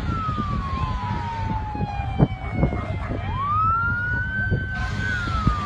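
Emergency vehicle siren wailing in a slow cycle: the pitch falls, climbs again about three seconds in, holds, then starts to fall near the end, over a steady low rumble. A few short knocks come in the middle.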